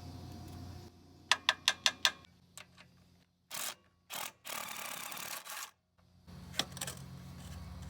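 Work on a riding mower: a quick run of five sharp clicks, a few fainter clicks, then several seconds of scraping and rubbing, with a low steady hum at the start and again near the end.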